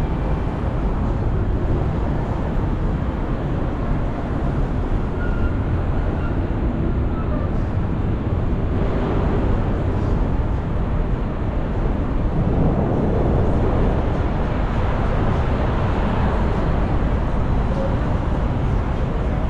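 Steady road and engine noise of a car driving in city traffic.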